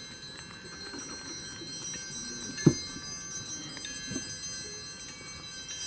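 A single sharp knock about halfway through, with a weaker tap a little later, over faint distant voices and thin, steady high ringing tones.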